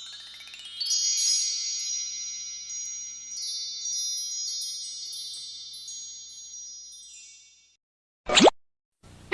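Wind-chime sparkle sound effect: many high metallic tones struck in a quick run, then ringing on together and fading out over about seven seconds. Near the end, a short sweeping tone.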